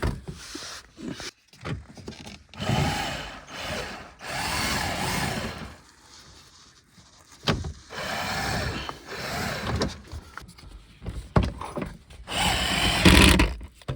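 Handheld power tool run in about six short bursts, its motor speed rising and falling within each burst, with a few sharp clicks between the bursts.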